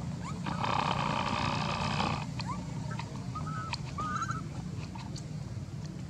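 Baby long-tailed macaque crying: a harsh scream of about a second and a half, then a few short rising-and-falling whimpers.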